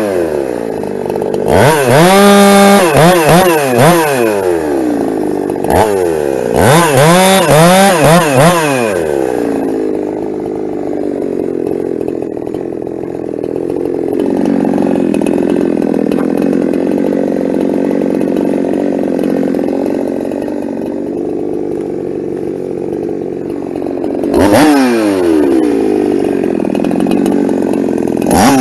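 Ported Husqvarna 372 two-stroke chainsaw cutting firewood. The engine revs up and down several times over the first nine seconds, runs steadily at a lower pitch for about fifteen seconds, then revs up and down again near the end.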